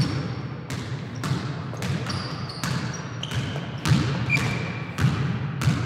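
A basketball being dribbled, bouncing on a court floor about twice a second in an uneven rhythm, with a few short high squeaks between the bounces.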